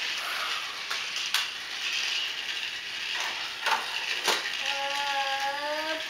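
Battery-powered Trackmaster Thomas toy engine running along its plastic track, a steady gear-motor whir and rattle with a few sharp clicks. Near the end a short pitched hum sounds over it.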